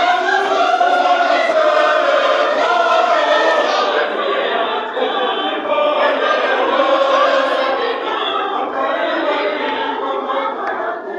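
A large group of voices singing together as a choir, many overlapping voices.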